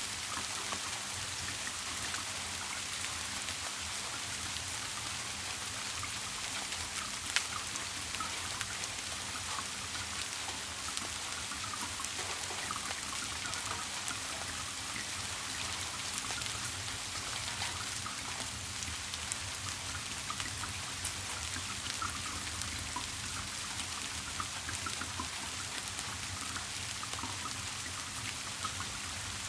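Steady rain falling, with many separate drops ticking and one sharper drop about seven seconds in, over a low steady hum.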